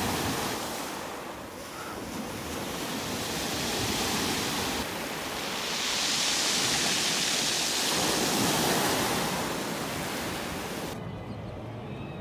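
Sea waves breaking and washing up over a pebble beach, the surf hiss swelling and easing, loudest a little past halfway. The hiss drops off sharply about a second before the end.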